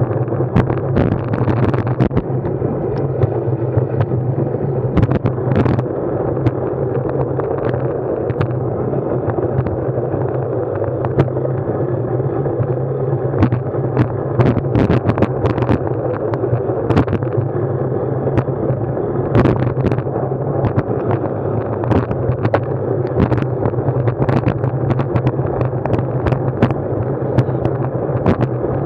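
Steady rumble of wind and road noise picked up by an action camera on a moving ride, with frequent small knocks and rattles throughout.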